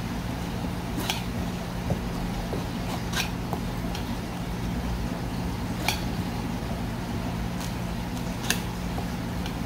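Knife clicking on a cutting board as small gizzard shad are cut, a few sharp clicks about every two to three seconds, over a steady low machine hum.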